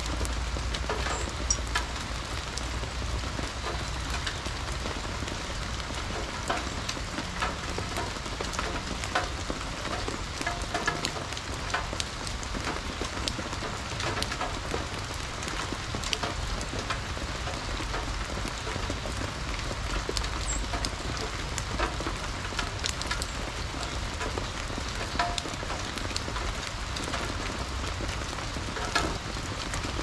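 Steady rain falling, with many close drips tapping irregularly on nearby surfaces.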